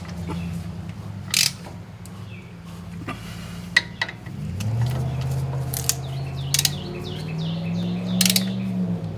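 A 13 mm socket ratchet clicking and knocking in short spells while brake caliper bolts are snugged up by hand. A low steady hum runs underneath, rising in pitch and level about halfway through.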